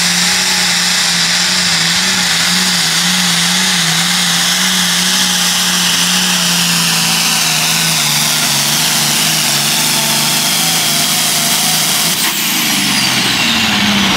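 International 1466 hot farm pulling tractor's turbocharged diesel running flat out under load as it drags the sled, with a high turbo whine over the engine note. The engine's pitch sags through the second half as the sled's weight builds. From about 12 seconds in, a sharp whistle falls away quickly.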